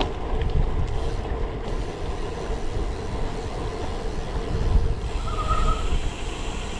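Wind rumbling on a bike-mounted action camera's microphone and road-bike tyres humming on the tarmac while riding. There is a brief squeal about five seconds in.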